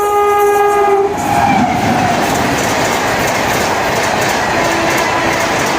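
A WAP-7 electric locomotive's horn sounds one blast of about a second, its pitch dropping as it ends, followed by the loud steady rush and clickety-clack of the Rajdhani Express's coaches passing at speed.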